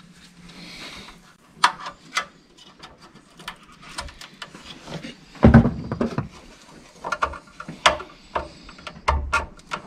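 Scattered clicks and light knocks of wiring connectors being worked loose by hand with a plastic tool in a Honda Insight's IMA battery compartment, with one louder knock about halfway through.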